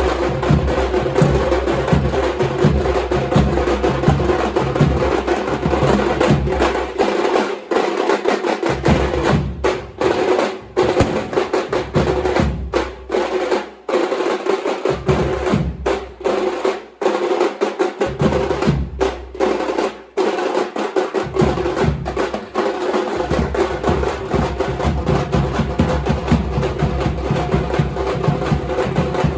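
Drums played loud and fast, a dense rolling beat of rapid strokes. Around the middle the deep bass drops out in stretches and the sound cuts off briefly several times.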